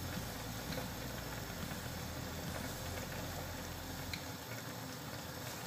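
Pot of chicken feet and braising liquid boiling steadily, with a low hum that drops away about four seconds in and a few faint clinks of a spoon against a jar.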